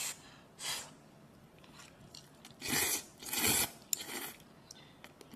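Someone eating udon topped with a crispy pan-fried vegetable fritter: four short, noisy bites and chews with quiet pauses between.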